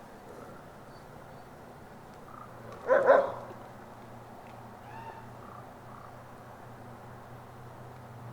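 A captive wolf gives one short, loud bark-like call about three seconds in, followed a couple of seconds later by a much fainter short call.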